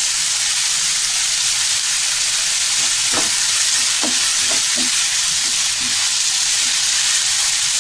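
Chopped onions sizzling steadily in hot oil in a nonstick pan, with a few short ticks in the middle as curry leaves and green chillies drop into the oil and a spatula stirs them through.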